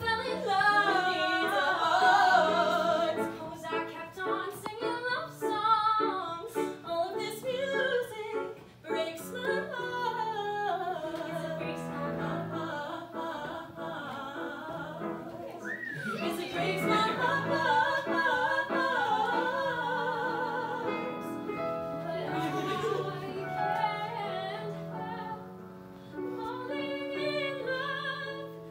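Musical-theatre ensemble singing a love-song medley, a woman's voice leading over the group with held lower notes underneath.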